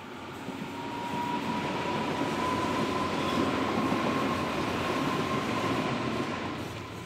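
Berlin U-Bahn train running past below, its rumble swelling to a peak about halfway through and fading as it passes, with a steady high whine throughout.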